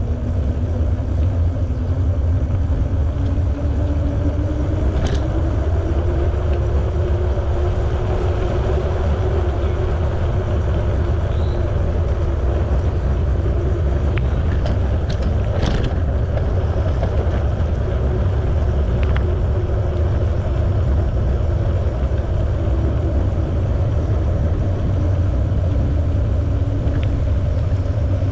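Bicycle riding along a paved trail: steady wind rumble on the camera microphone with tyre noise. A faint hum rises slowly in pitch over the first several seconds and then eases down, and a few light clicks come around the middle.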